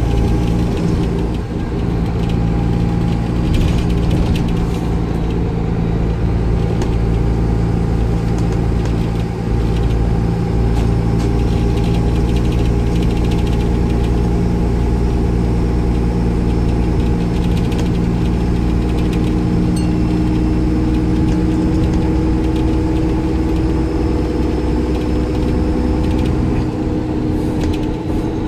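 Cummins ISCe six-cylinder diesel engine of a Dennis Trident 2 double-decker bus running at a steady speed, heard from inside the lower deck as a continuous drone.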